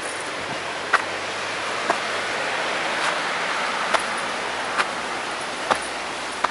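Steady rushing of a waterfall, with a sharp tap about once a second.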